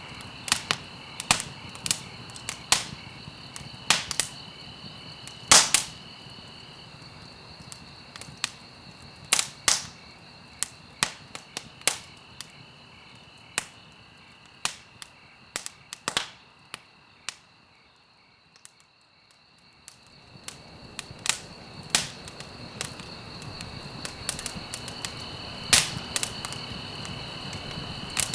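Wood fire crackling in a fireplace: irregular sharp pops and snaps over a low steady rumble, with a faint steady high-pitched tone underneath. About two-thirds through, the fire sound fades almost to nothing for a couple of seconds, then builds back up.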